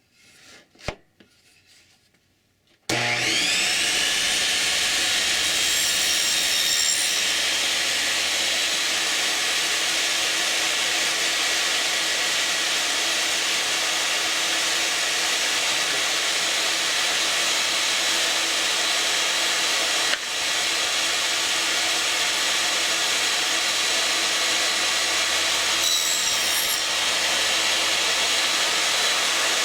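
Ryobi RTS21 portable table saw with a dado blade set switched on about three seconds in. Its whine rises as it spins up, then it runs steadily while cutting a 1/4 inch dado into a wooden board.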